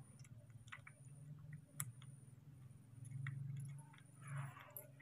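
Baby macaque nibbling and sucking on a small piece of fruit held in fingers: faint scattered mouth clicks and smacks over a low steady hum that swells for a moment about three seconds in.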